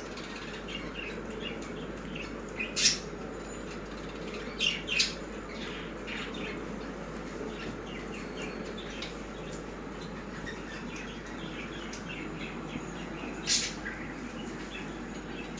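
A flock of Baazigar pigeons: a steady run of short, high chirps, with a few louder sudden bursts of wing flapping about three, five and thirteen seconds in.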